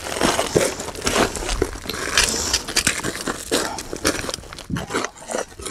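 Footsteps crunching on loose rocky scree while walking down a steep slope, in irregular steps, with small stones scraping and shifting underfoot.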